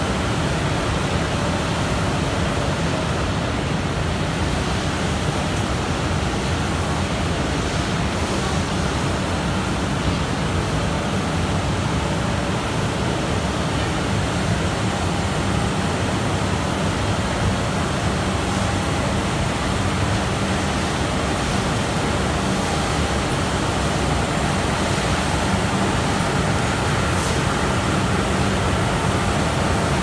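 Mesh-type veneer drying machine running, a steady, even machine hum and hiss with no change in pitch or pace.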